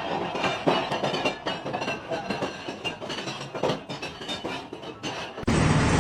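Irregular metallic clinking and knocking, many sharp strikes over a clattering background. About five and a half seconds in it cuts abruptly to a steady rumbling noise.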